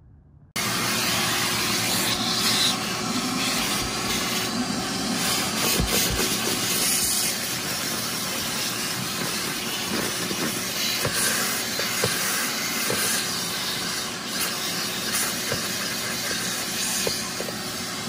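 Ridgid 16-gallon, 6.5 peak HP wet/dry shop vacuum running, cutting in about half a second in: a steady rush of air sucked through a narrow nozzle and hose, with a steady hum beneath it and a few small clicks as the nozzle works over car carpet.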